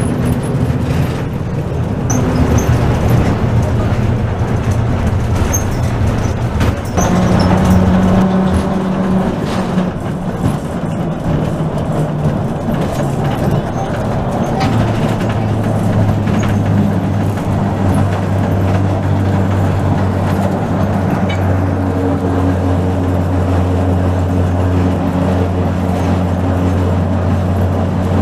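BMEŽ 31 heritage tram running on street track, heard from inside its wooden driver's cab: a steady low motor hum over the rumble of wheels on the rails, its pitch shifting now and then, with one sharp knock about seven seconds in.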